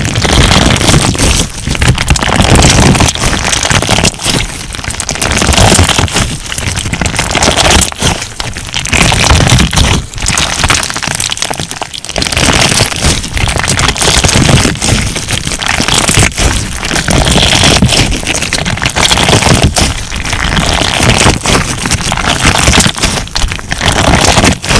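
Crunch slime being squeezed and pressed, giving dense crackling pops that swell and ease in waves about every one to two seconds.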